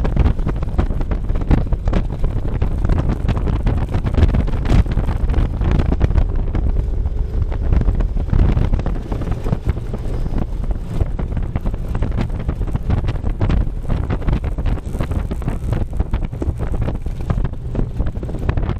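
Wind buffeting the microphone: a loud, steady rumble with gusty peaks throughout.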